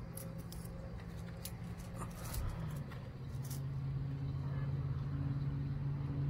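Dry mesquite pods and leafy branches crackling and rustling as they are snapped off by hand, a run of sharp light clicks over the first few seconds. Under it a steady low engine hum sets in and grows louder toward the end.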